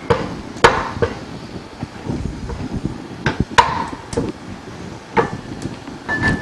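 Samosas deep-frying in hot oil with a steady low sizzle, broken by about eight sharp knocks and clacks of kitchen utensils.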